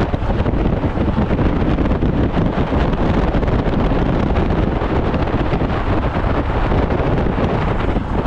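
Wind buffeting a camera mounted on the outside of a moving Chevrolet S10 pickup: a loud, steady rush of wind noise with the truck's road noise underneath.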